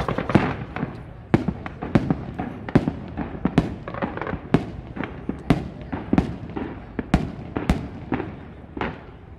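Fireworks display going off: a fast run of crackling reports right at the start, then a string of separate sharp bangs about one a second, each with a short echoing tail.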